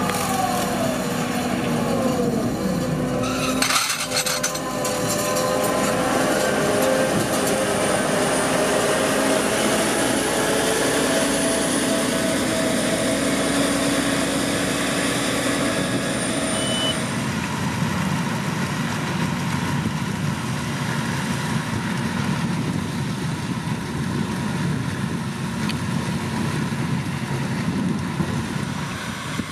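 Heavy machinery, most likely a sugar beet harvester, with its diesel engine running. The pitch glides at first, then holds steady, with a brief clatter about four seconds in. About two-thirds of the way through, the even tone gives way to a rougher, noisier running sound.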